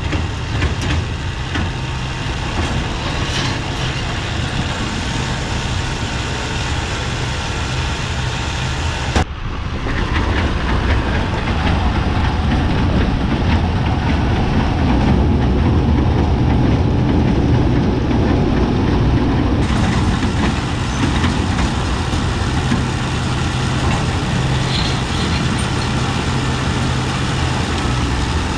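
McCormick tractor engine running steadily while pulling a round baler through barley straw. About nine seconds in the sound changes abruptly and becomes louder and rougher.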